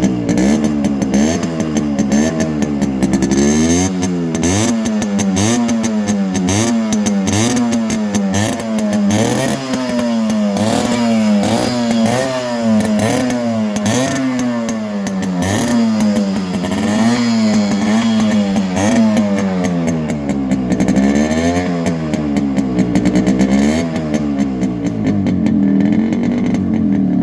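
Yamaha RX100's two-stroke single-cylinder engine, breathing through its original six-hole silencer, revved up and down over and over, about once a second. It settles back to a steady idle near the end.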